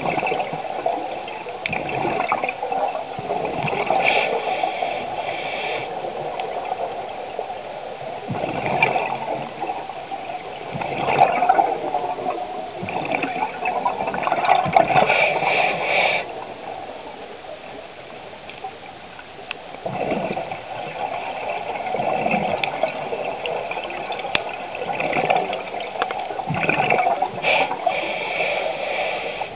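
Scuba regulator breathing heard underwater: exhaled bubbles gurgle out in bursts every few seconds, with a longer pause about halfway through.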